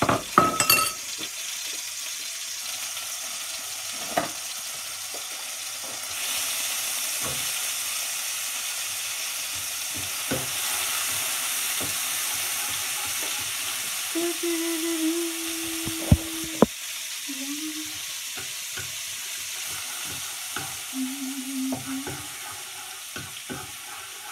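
Chopped garlic sizzling in hot oil in a frying pan, stirred with a wooden spatula, with occasional knocks of the spatula against the pan. The sizzle grows louder about six seconds in.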